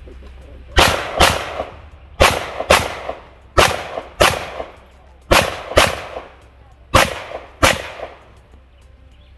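Ten gunshots fired as five quick double taps, about half a second between the two shots of each pair and a second and a half between pairs. Each shot has a short echoing tail.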